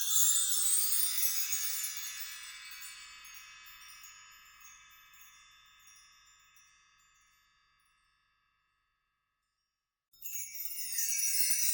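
A quick upward run of many small chiming bells, ringing out and fading away over about eight seconds. After about two seconds of silence, a second run starts near the end.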